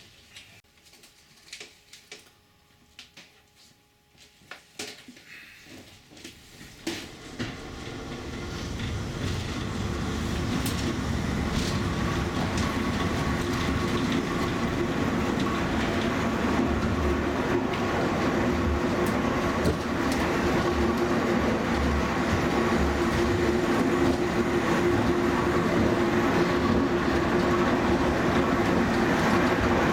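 Zecca–Righi funicular car running through a rail tunnel. After a few quiet seconds with scattered faint clicks, the running noise rises over several seconds to a steady rumble with a steady hum, which holds.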